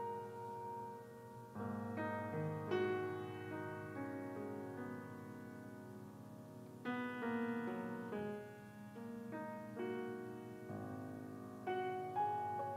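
Slow, soft piano music: chords struck every second or two, each ringing on and fading, with a simple melody on top.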